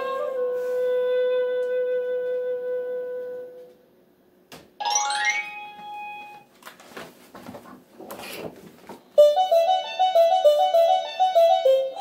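A held flute-like note fades away, followed by a short rising note. Paper rustles as a book page is turned, then a quick, bright tinkling keyboard melody of rapid chiming notes begins.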